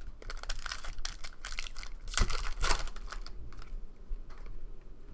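Panini Prizm baseball cards being flicked and slid one behind another in the hands: a run of quick, irregular light clicks and rustles, busiest a little after two seconds in.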